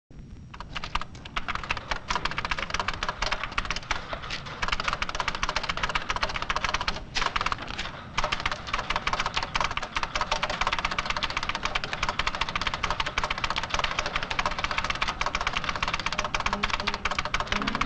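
Rapid, dense clicking of office computer equipment: typing on a terminal keyboard and dot-matrix printer chatter, with a short break about seven seconds in. Music comes in near the end.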